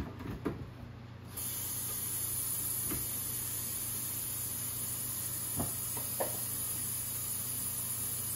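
Water running in a steady hiss that starts suddenly about a second in, as more water is added for the pot, with a few light knocks.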